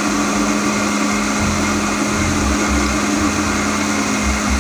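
Electric blender motor running steadily, blending cream while mango cubes are added through the open lid hole. A constant motor hum over a whirring noise, with a lower churning that comes and goes.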